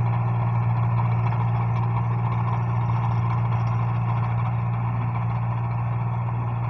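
Tractor engine running steadily with an unchanging low hum as it drives a rear-mounted rotary tiller through the field.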